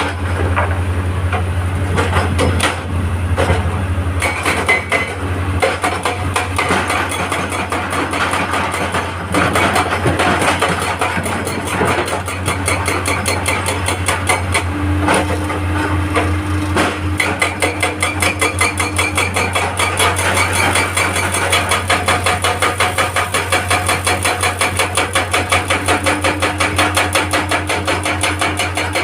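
Hydraulic rock breaker on a Hitachi excavator hammering rock in a rapid, even run of blows, several a second, over the steady drone of the excavator's diesel engine.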